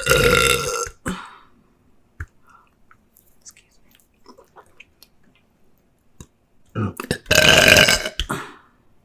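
A woman burping twice: one burp fading out about a second in, then a second long burp about seven seconds in that lasts nearly two seconds. Faint mouth clicks and smacks fall between them.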